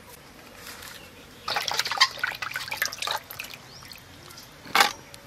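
Water splashing and dripping in a steel bowl as hands wash hilsa fish heads, with a run of splashes about a second and a half in and a single splash near the end.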